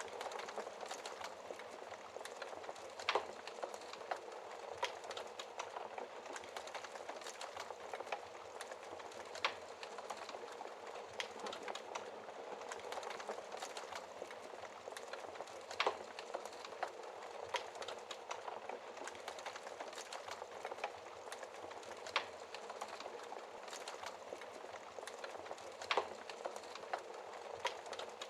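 Wood fire burning in a fireplace: a steady hiss of flames with constant small crackles, and a louder pop every few seconds.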